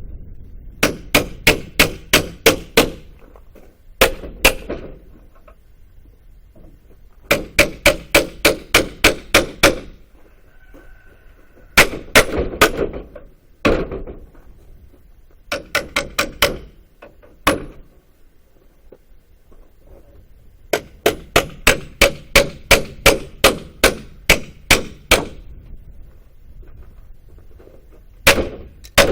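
Hammer blows in quick runs of about five strikes a second, each run lasting a second or a few, with short pauses between: a pallet being knocked apart and its nails driven out.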